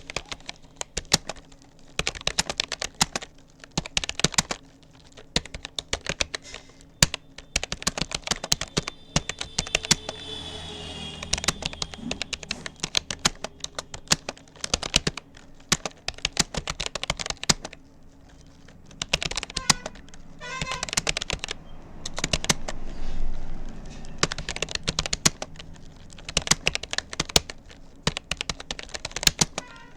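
Rapoo computer keyboard keys clicking rapidly in steady touch-typing at about 40 words per minute, in runs of keystrokes broken by short pauses.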